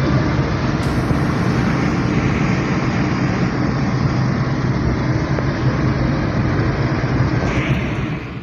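A moving road vehicle: steady engine and road rumble with a low hum. It cuts off abruptly at the very end.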